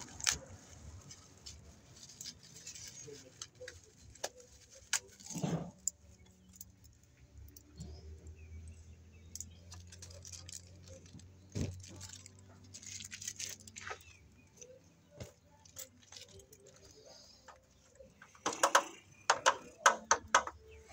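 Small metal parts clinking and rattling as a light fixture's mounting crossbar and its screws are handled, in scattered clicks with a quick run of louder clatters near the end.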